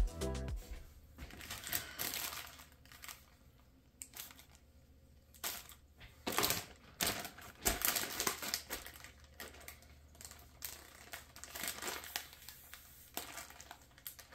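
Plastic bags crinkling and rustling in irregular bursts as they are handled, with a few sharp clicks in between.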